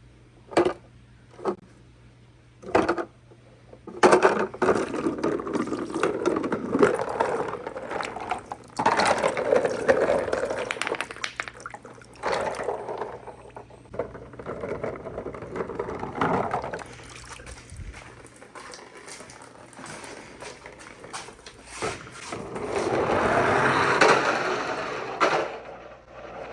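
Marbles rolling and clattering down a wooden marble run: a few single clicks first, then from about four seconds in a continuous rolling rattle full of clacks that swells and fades in waves.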